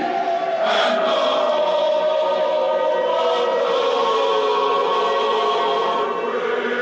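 Eerie background music: a sustained choir-like chord, with one voice line sliding slowly down in pitch and a new higher note entering near the end.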